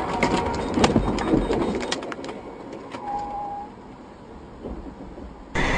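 A box truck crashing ahead, heard from the dashcam car: a quick series of sharp bangs and clattering as debris hits, lasting about two seconds, then quieter driving noise.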